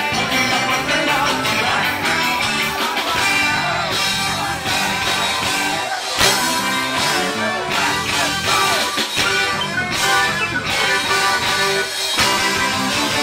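Live ska band playing, with saxophones and trumpet carrying the tune over electric guitar, bass and drums, no lead vocal line.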